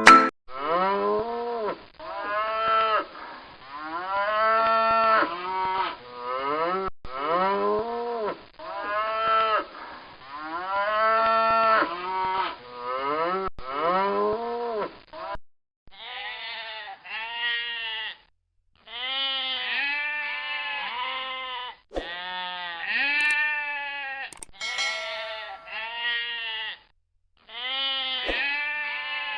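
Recorded farm animal calls: drawn-out calls one after another for about fifteen seconds. After a short break comes a second set of shorter calls with brief pauses between them.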